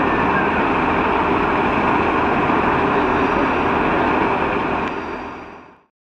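Northern diesel multiple unit moving along the platform, a steady engine and wheel noise that fades out about five seconds in.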